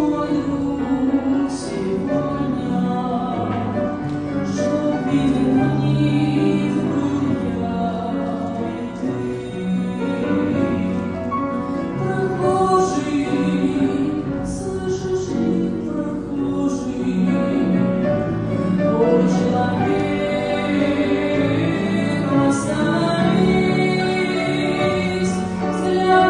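Church choir singing a Russian Christian hymn in a continuous sung passage.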